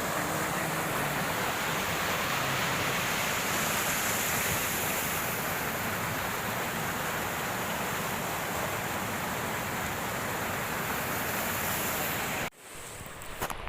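Waterfall's steady rushing of falling water, cutting off suddenly near the end.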